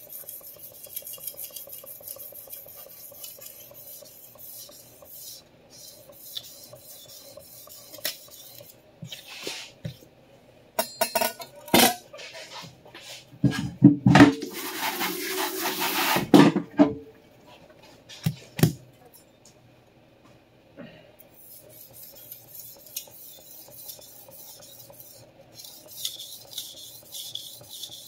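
Steel chef knife blade scraping in light strokes across a whetstone at the start and again near the end. In the middle come sharp clatters of the knife, stone and its metal holder being handled and set down, with a loud rushing hiss for about three seconds among them.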